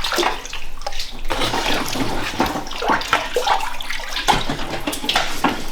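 Water running and splashing steadily, as from a tap or hose into a large vessel.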